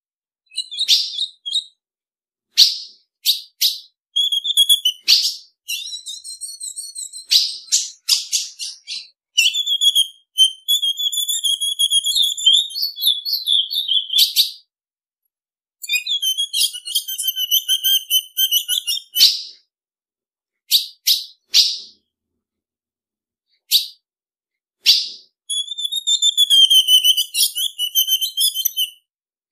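Female ultramarine grosbeak (azulão) calling: single sharp high chip notes and runs of rapid chattering notes, in bursts broken by pauses of a second or two. It is the female's call that keepers play to excite male azulões into singing.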